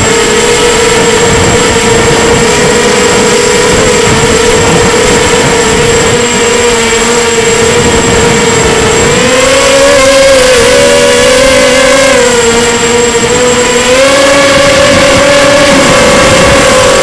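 Emax Nighthawk 250 FPV quadcopter's electric motors and propellers whining, recorded from a camera on the craft. The pitch holds steady, then from about nine seconds in rises and wavers with the throttle, dips briefly and settles a little higher.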